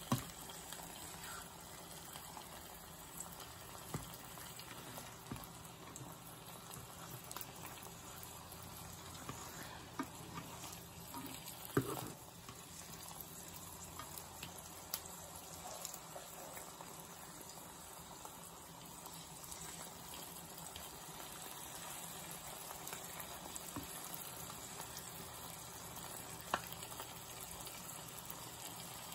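Ham slices and fried eggs sizzling softly in a nonstick frying pan, with scattered light clicks of a spatula against the pan and one sharper click about twelve seconds in.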